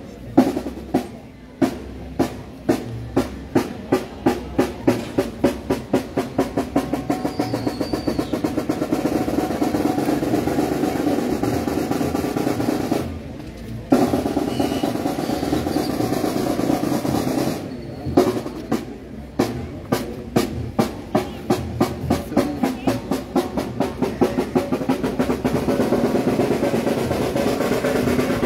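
Procession marching band: snare drum strokes about three a second that quicken into long rolls, stopping briefly about halfway and building again from separate strokes into another roll, over horns and saxophones holding long low chords.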